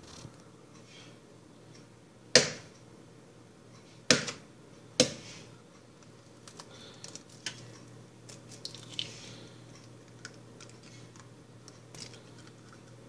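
Eggs being cracked against the edge of a pan: three sharp knocks, the first the loudest, about two, four and five seconds in, followed by lighter scattered clicks and taps of shell and utensils.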